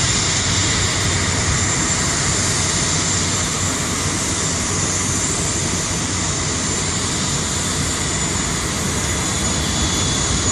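Jet engines of an airliner at takeoff power: a steady rushing noise with a thin high whine above it, easing off slightly.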